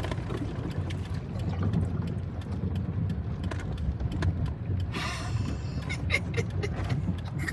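Car running low and steady, heard from inside the cabin as it drives through a flooded street, with scattered small clicks and a brief rushing noise about five seconds in.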